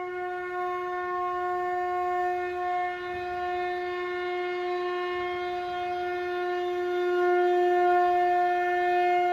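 One long held note on a horn-like wind instrument, steady in pitch throughout, growing a little louder near the end.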